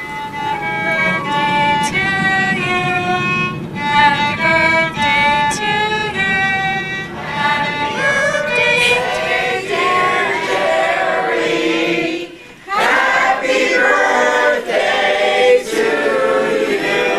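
Music: singing voices carrying a melody in steady, stepwise notes over bowed strings, with a brief break about twelve and a half seconds in.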